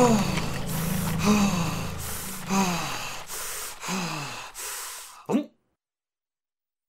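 A man's voice letting out a run of short, breathless cries, each falling in pitch, with sharp gasping breaths between them about every second and a quarter. The cries fade and stop about five seconds in.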